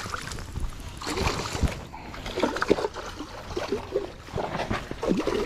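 Hooked rainbow trout splashing and thrashing at the water's surface as it is played in on the line, in irregular bursts.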